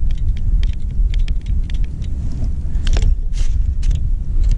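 Boots crunching and crackling in snow on lake ice in a string of short, sharp steps, with a few louder crunches near the end, over a steady low rumble on the microphone.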